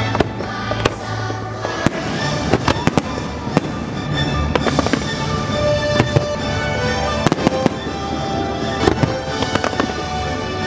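Fireworks show: many sharp pops and bangs at irregular intervals, heard over the show's music playing on loudspeakers.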